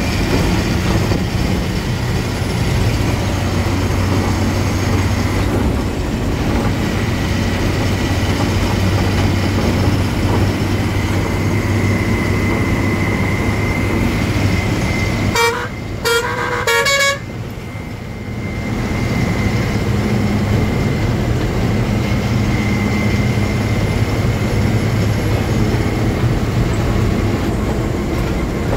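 Heavy goods truck's diesel engine and road noise droning steadily inside the cab, with a quick series of short horn blasts about halfway through.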